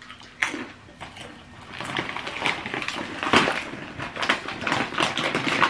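Crisp oven-baked paprika crackers being bitten and chewed close up: a run of irregular crunches.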